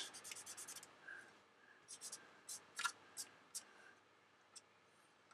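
Fingertip rubbing pastel pigment onto the matte-coated plastic wing of a scale model aircraft: faint, short scratchy strokes, a quick run at the start and a few more spaced about a third of a second apart from about two seconds in.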